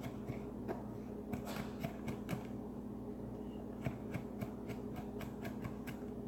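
Kitchen knife chopping on a cutting board: light, irregular taps, a few a second, over a steady low hum.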